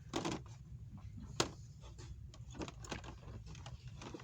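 Store background hum with scattered soft clicks and knocks, one sharp click about a second and a half in.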